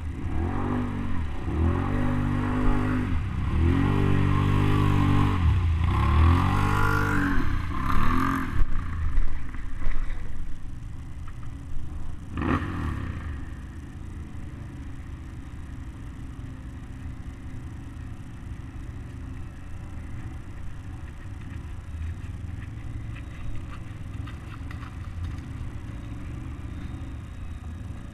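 Can-Am Outlander ATV's V-twin engine revving up and down repeatedly as it ploughs through deep floodwater, its pitch rising and falling about five times. About eight seconds in, the sound drops abruptly to a quieter, steady low engine rumble of ATVs further off wading through the water.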